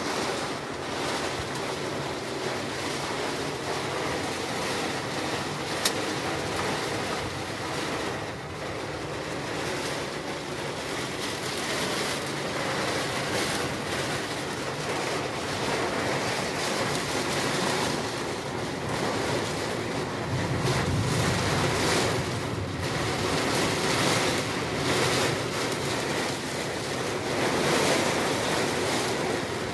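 Sea waves and wind rushing across the microphone in a steady, rising-and-falling roar, with one sharp click about six seconds in.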